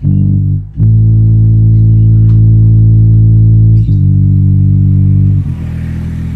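Loud bass-heavy music played through a stack of six ACR 6-inch woofers in plywood horn cabinets: long held low notes, with the note changing about a second in and again near four seconds. About five and a half seconds in it drops in level into a busier, noisier low passage.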